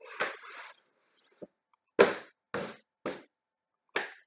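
Cardboard box and packaging being handled as an item is put back in: a rustle at the start, then four short sharp scrapes and knocks, the loudest about two seconds in.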